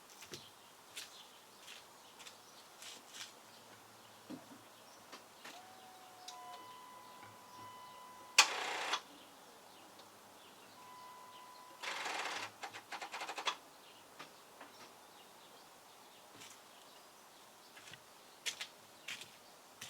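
Two tries at starting a Dodge Durango that won't start. Each time a steady electronic warning tone sounds for a second or two, then a harsh burst of rapid clicking, short the first time and about a second and a half the second, without the engine cranking over.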